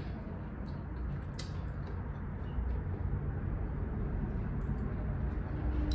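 Quiet room tone with a steady low hum, and a faint clink about a second and a half in from a fork against the glass serving tray.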